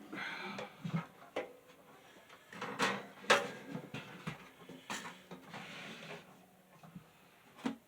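Hands working on a box fan's parts: scattered sharp clicks and knocks with rubbing and scraping in between, the loudest click about three seconds in.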